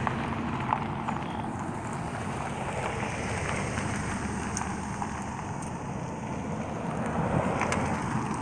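Road traffic passing close by: cars and a pickup truck driving past with a steady rush of tyre and engine noise, swelling a little near the end, with some wind on the microphone.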